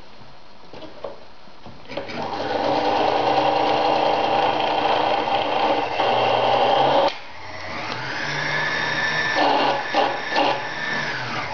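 Victoria Nutzstich ZZ-580 sewing machine running at a steady speed for about five seconds, then stopping abruptly. It starts again at once and picks up speed, with a few knocks near the end.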